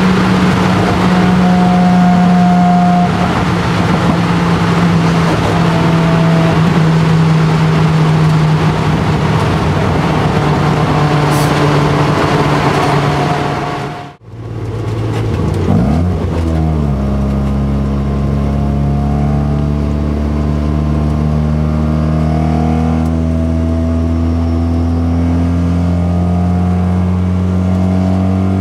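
Mazda RX-7 FD's single-turbo 13B rotary engine heard from the cockpit at speed, a steady drone over wind and road noise, its pitch sagging slowly. About halfway through it cuts out briefly, then returns as a lower, steadier drone that climbs slowly in pitch.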